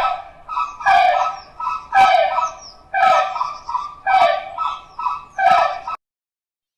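A dog barking repeatedly, a loud bark about once a second with quieter barks in between, stopping abruptly about a second before the end.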